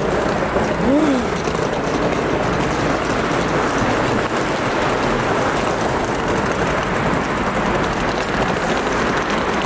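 Steady rush of road traffic on a street, tyre and engine noise with no single vehicle standing out.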